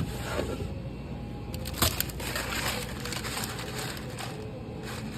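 Crunching and crackling from handling a convenience-store snack, with a sharp snap a little under two seconds in.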